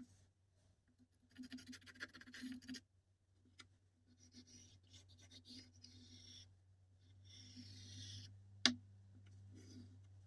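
Faint intermittent scratching and rubbing in three irregular stretches, with one sharp click near the end, over a steady low electrical hum.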